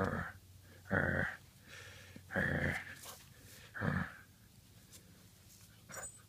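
Great Pyrenees puppy barking, four short barks about a second and a bit apart.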